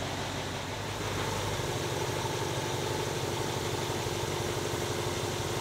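2011 Range Rover's 5-litre Jaguar V8 idling as the SUV creeps forward, a steady low hum that gets slightly louder about a second in. The owner has diagnosed this engine with serious timing problems.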